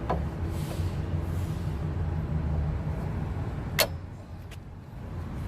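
A sharp metallic clink about four seconds in, with a lighter click at the start, over a steady low rumble: tools or steel parts knocking during suspension work.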